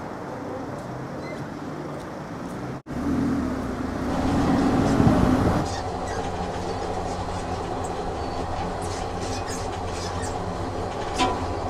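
Road noise from the moving car cuts out abruptly about three seconds in. A dubbed train sound effect takes over: a louder rumble for a couple of seconds, then a steady train running on rails with a low hum and scattered clicks.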